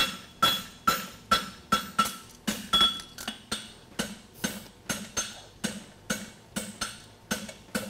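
Hammer blows on a red-hot steel horseshoe bar over the anvil horn, bending it into the shoe's curve: a steady run of ringing strikes, about two or three a second.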